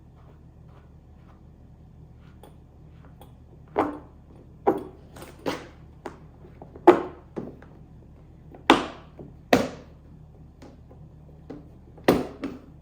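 Irregular knocks and clunks, about ten over the last nine seconds, from metal and plastic cart parts being handled and fitted during assembly of a dump cart. A steady low hum runs underneath.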